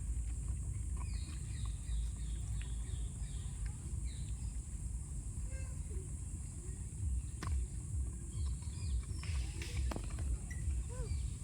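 Outdoor background with a low rumble and a steady high hiss, broken by scattered short falling chirps from a small animal or bird, mostly in the first few seconds. There are two sharp clicks, one about halfway through and one near the end.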